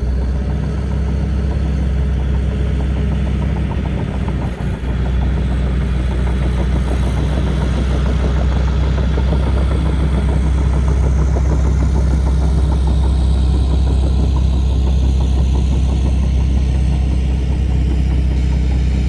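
Caterpillar crawler dozer's diesel engine running steadily with a low drone and a rattle over it, growing louder as the machine comes close.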